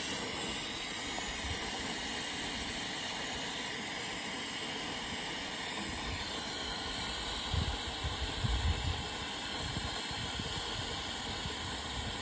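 Oxy-fuel cutting torch flame hissing steadily as it heats the end of a steel header roller, with a few low thumps about eight seconds in.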